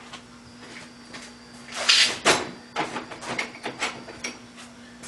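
Clicks, knocks and short scrapes of small metal hand tools being picked up and handled, over a steady low shop hum. The loudest scrapes come about two seconds in, followed by a run of lighter clicks.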